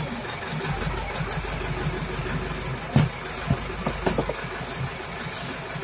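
A steady low motor hum, with a sharp knock about three seconds in and a few shorter knocks and clicks soon after.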